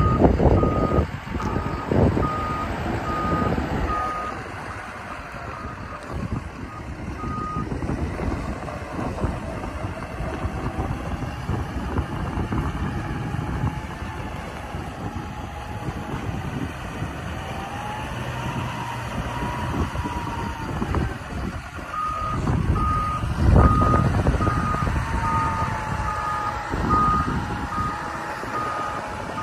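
Hyundai HL955 wheel loader running and driving, its reverse alarm beeping at a steady pace of about two beeps a second for the first several seconds and again over the last seven or so. In between, the machine's drive noise carries a whine that rises and falls in pitch.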